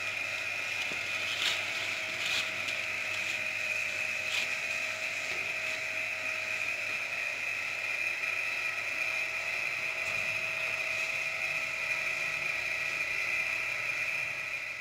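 Steady high-pitched mechanical whirring of a running oven, with a few faint clicks.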